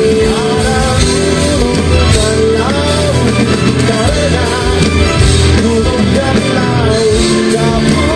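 A live song: a man singing into a microphone while strumming a guitar, amplified through a stage sound system.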